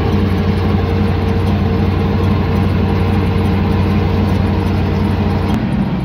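Truck engine running steadily at cruising speed, heard from inside the cab, with a low even hum and a fast regular pulse under tyre and road noise. The lowest part of the hum drops away about half a second before the end.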